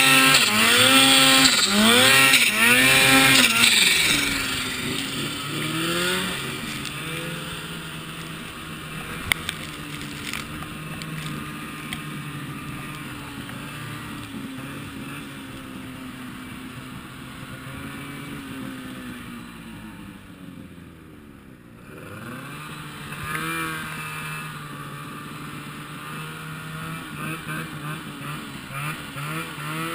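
Ski-Doo XM snowmobile's two-stroke engine revving hard in quick up-and-down surges during a hill climb, then dropping back to a lower, steadier running. About two-thirds of the way through it slows right down with a falling then rising pitch, and near the end it picks up again with light throttle blips.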